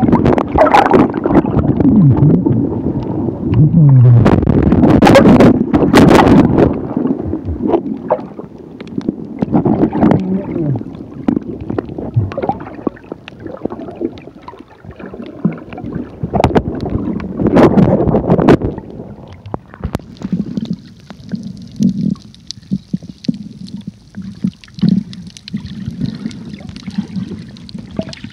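Water sloshing and gurgling around a phone held underwater, heard muffled through its submerged microphone. Loud and irregular for about the first two-thirds, then quieter, with a faint steady hiss and occasional low knocks.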